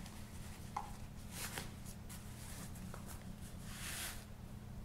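Nylon drawstring lens pouch being handled as a lens is slipped into it and the pouch is cinched shut: faint fabric rustling with a few soft taps, and a longer swish near the end.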